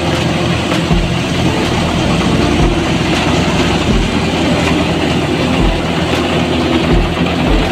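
Tractor-driven thresher running steadily under load as straw is fed in: a loud, continuous mechanical whir and rattle, with the 640 tractor's diesel engine running beneath it and a few brief low bumps.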